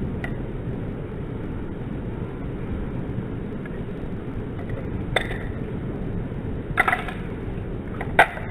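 Balisong (butterfly knife) handles clicking as the knife is flipped: a few sharp metallic clicks, two of them close together near the middle and one near the end, over a steady background hiss.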